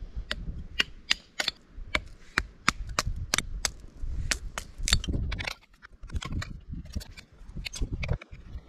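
A canoe being paddled through thick mud: a run of sharp clicks and knocks, about three a second, over a low rumble, with a short lull about two thirds of the way through.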